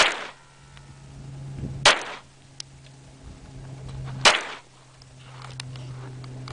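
Glock 17 9mm pistol fired three times in slow single shots about two seconds apart, each a sharp crack that trails off briefly.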